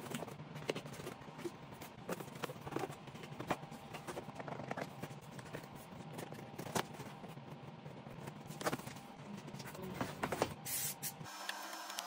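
A cardboard sheet rubbing and knocking against a plastic compressor housing as it is held in place, with pen scratches on the cardboard: many small clicks and scrapes, and a brief louder rustle near the end.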